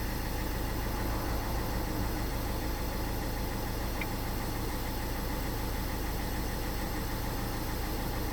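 Renault 1.5 dCi four-cylinder diesel engine idling steadily and evenly, running smoothly with no misfire now that the faulty cylinder-1 injector has been replaced.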